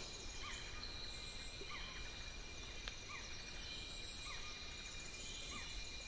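Tropical forest ambience: a steady high insect drone, with a short rising call repeated every second or so.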